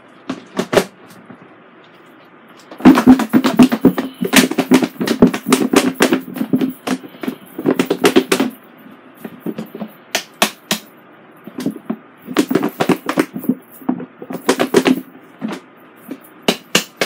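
Chicken wings and flour breading shaken inside a lidded plastic breader shaker bowl: rapid rhythmic thumping and rattling against the plastic. It comes in several bursts, the longest starting about three seconds in, with short pauses between them.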